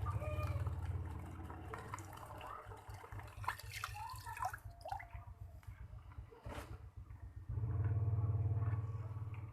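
Homemade mini water pump, driven by a 12-volt DC motor, running with water gurgling and splashing. A low motor hum is loud at the start, fades, and returns strongly about three-quarters of the way through.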